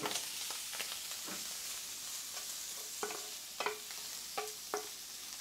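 Squid sizzling in oil in a non-stick frying pan over a high gas flame, with a wooden spatula scraping and knocking against the pan as it is stirred. The knocks come several times in the second half.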